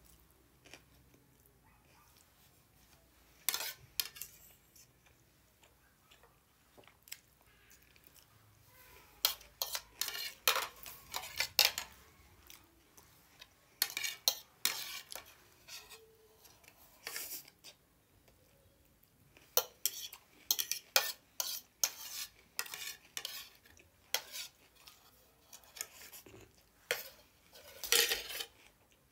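Metal fork clinking and scraping against a ceramic plate of noodles, in short clusters of sharp clicks with quiet stretches between.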